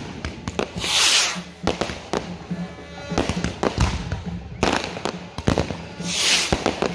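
Fireworks going off in quick succession: many sharp bangs and crackles from bursting shells, with two longer hissing bursts, one about a second in and one near the end.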